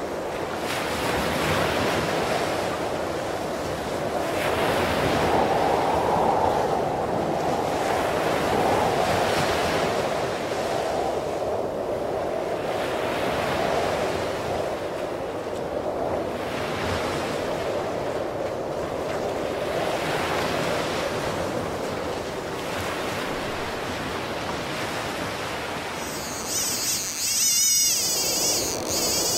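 Atlantic surf washing up a sand beach, swelling and fading every few seconds as waves break and run up the sand.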